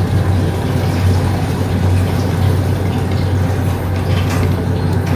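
Beef and potato curry boiling hard in an open aluminium pressure-cooker pot, bubbling steadily as it is stirred with a wooden spoon, over a steady low hum.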